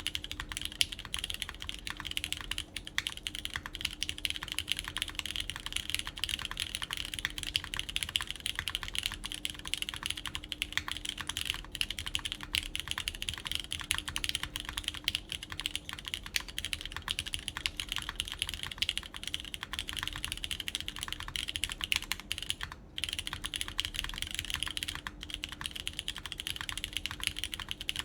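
Steady, continuous typing on a QK Neo80 Cu custom mechanical keyboard in poron gasket mount, with lubed Cherry MX Orange switches, a PEI plate and GMK Carbon keycaps. There is a brief pause about 23 seconds in.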